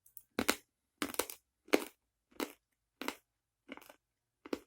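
Crunching on a chalky compressed candy stick, with about seven separate crunches evenly spaced, roughly two-thirds of a second apart.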